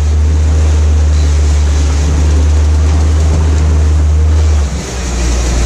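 Honda outboard motor running with the boat under way, its steady low drone over rushing wake water and wind. About four and a half seconds in the engine's steady note breaks off and the level dips briefly before a rougher engine sound resumes.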